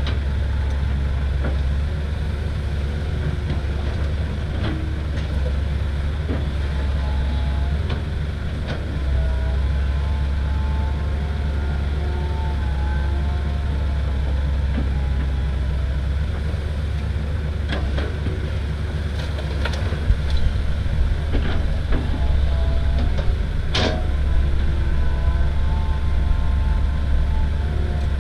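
Diesel engines of a Komatsu hydraulic excavator and a six-wheel dump truck running steadily with a low drone while the excavator digs and loads soil into the truck. A few sharp knocks and clatters come in the second half.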